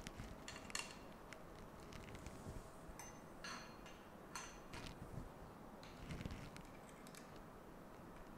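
Allen wrench working the screws on a 3D printer's metal X-axis frame: faint, scattered metallic clicks and scrapes as the screws that hold the X-axis and bed are loosened.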